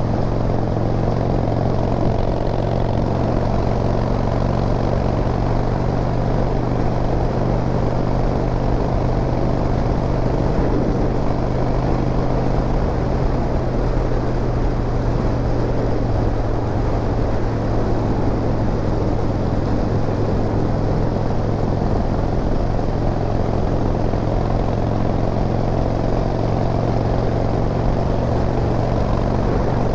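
Harley-Davidson V-twin engine running steadily while riding, with a constant low rumble and wind rush.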